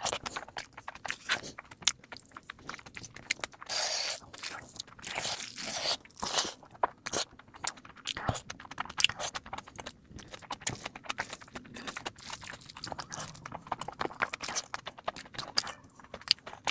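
Close-miked eating sounds: rapid crunching, biting and chewing with many quick clicks and smacks, sped up to double speed.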